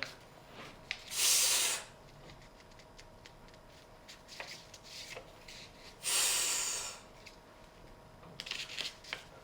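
A man's voice making a drawn-out hissed "sss" phonics sound twice, each under a second, about five seconds apart, with a few faint clicks near the end.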